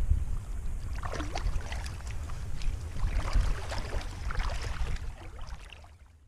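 Shallow lake water splashing and sloshing around a wading angler's hands and legs, over a constant low rumble. It fades out near the end.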